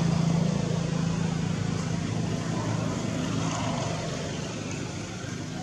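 Steady low hum of a motor vehicle's engine, loudest at first and slowly fading away.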